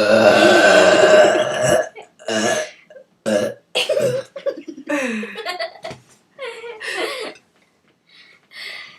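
A person burping on purpose in a burping contest: one long, loud burp of about two seconds, then a string of shorter, quieter bursts of sound.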